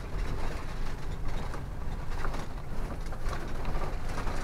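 Vehicle driving slowly over a rough dirt road, heard from inside the cab: a steady low engine and road rumble with scattered clicks and rattles.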